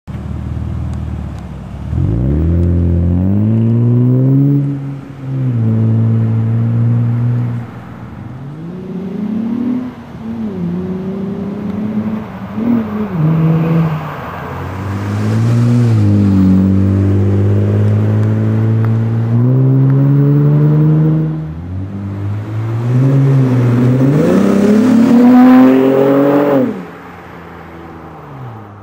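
2005 Acura TL's 3.2-litre V6 running through an aftermarket ATLP quad exhaust. The revs repeatedly rise, drop back and hold steady for a few seconds at a time, and the exhaust note climbs and falls with them. Near the end it settles to a quieter, lower note.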